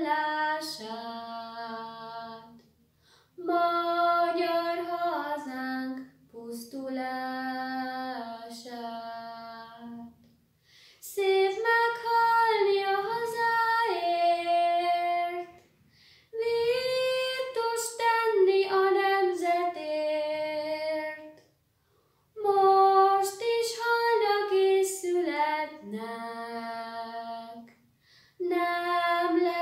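A girl singing a song solo and unaccompanied. She sings in phrases of a few seconds with held notes and takes short breaths between them.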